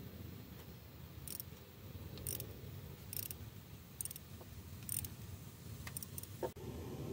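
Socket ratchet clicking in short bursts about once a second as it is swung back and forth, undoing an exhaust manifold bolt. A single louder knock comes near the end.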